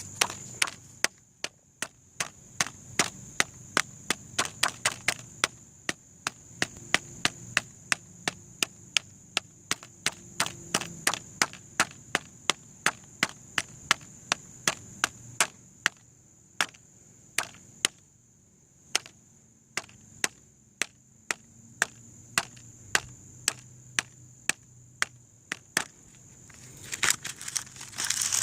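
A long series of sharp blows, about two a second with a few short pauses, as the novelty fart-sound birthday card is struck again and again to destroy it. A louder scraping, noisy burst comes near the end.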